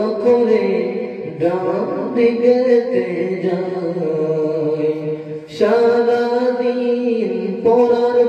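Boys' voices singing a Bengali Islamic gazal into microphones, in long held notes with a new phrase starting every couple of seconds.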